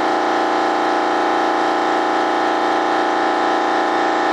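A motor-driven machine running with an unchanging, steady hum.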